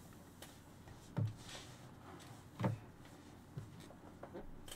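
A few soft, short thumps in a quiet room, with two clearer ones about a second and two and a half seconds in.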